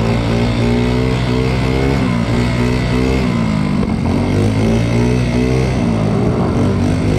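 Small moped engine running while riding, its pitch rising and falling several times as the throttle opens and closes.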